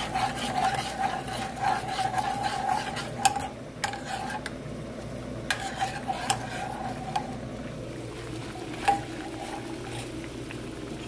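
A metal spoon stirs and scrapes around a metal saucepan of thin liquid, with a few sharp clinks against the pan. After about seven seconds the scraping stops and a quieter, even sizzle remains from steak cooking in gravy in a cast-iron skillet.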